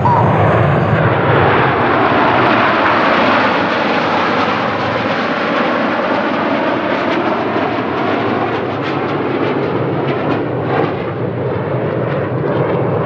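Jet noise from Red Arrows BAE Hawk T1 jets flying the display, loudest at first and slowly easing off.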